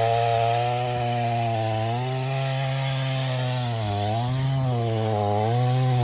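Craftsman gas chainsaw with an 18-inch bar cutting into a silver maple trunk at full throttle. The engine pitch dips and recovers several times as the chain bogs down in the wood.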